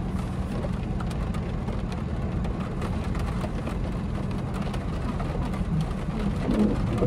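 Steady low rumble of a car running with the heater on, heard from inside the cabin, with rain falling on the roof and windows.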